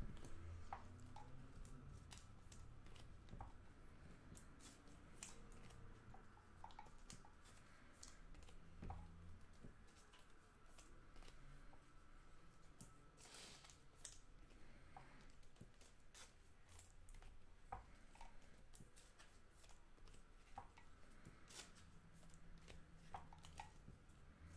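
Faint handling of trading cards: cards slid, stacked and tapped on a table mat, with scattered small clicks and rustles.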